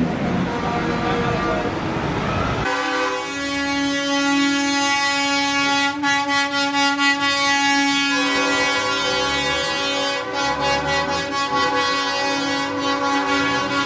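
Tractor-trailer air horns blowing one long, steady multi-note chord that starts about three seconds in and holds to the end, the chord changing a little about eight seconds in. Before it comes a short stretch of mixed street and engine noise.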